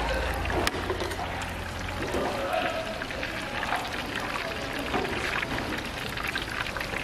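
Battered strips deep-frying in a wok of hot oil: a steady, dense sizzle full of fine crackles.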